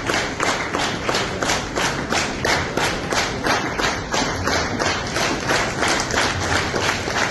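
Crowd clapping in unison, a steady rhythm of about two to three claps a second.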